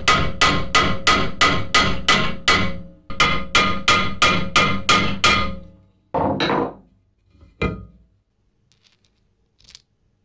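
Hammer peening a steel rivet head: quick, even, ringing metal strikes, about three to four a second, in two runs with a short break about three seconds in. After the strikes stop, a duller thud with a scrape follows, then a single sharp knock.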